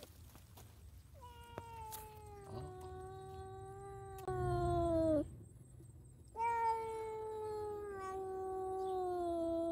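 Domestic cat trapped in a wire cage trap, meowing in two long drawn-out calls, each slowly falling in pitch: the distress calls of a caught cat. The first starts about a second in and grows louder partway through; the second starts past the middle.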